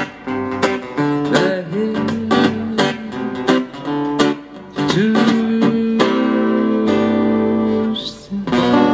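Live acoustic guitar strumming, with a long held note from about five to eight seconds in.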